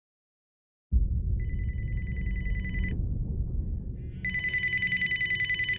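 Telephone ringing twice with a high trilling ring, the second ring cut off short, over a low rumble that starts about a second in.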